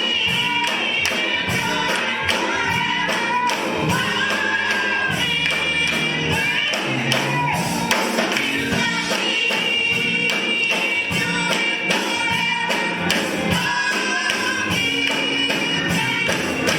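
Gospel music with singing over a steady, busy percussion beat.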